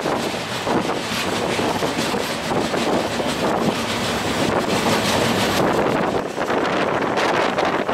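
Wind buffeting the microphone over the running noise of a passenger train moving at speed, a loud gusty rush with no steady rhythm of wheel clicks.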